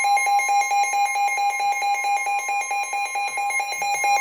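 Weather radio receiver's alert alarm: a rapid electronic beeping at one pitch, several beeps a second, with a steady, slightly higher tone faintly beneath it, signalling an incoming weather warning.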